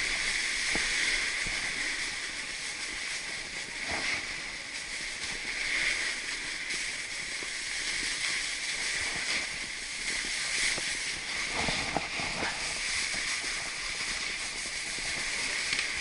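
Steady hiss of a snowboard sliding over packed snow, with a few brief scrapes along the way.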